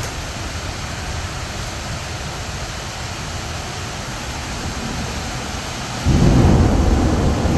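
Heavy rain pouring steadily, then about six seconds in a loud, low rumble of thunder breaks in and keeps going.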